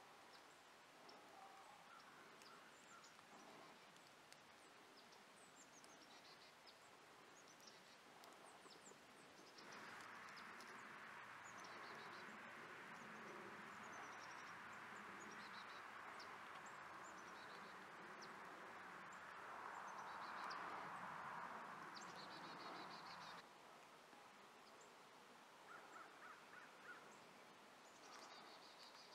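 Faint woodland ambience with small birds chirping and calling throughout. A steady hiss comes in abruptly about a third of the way through and cuts off just as abruptly well after the middle.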